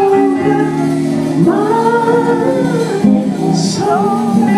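A woman sings a gospel phrase into a microphone, with long held notes that swell and bend, over steady held chords from the instrumental accompaniment.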